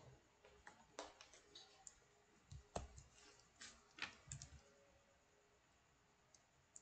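Faint, irregular clicking of keys being pressed, with a couple of duller knocks around the middle and a pause near the end.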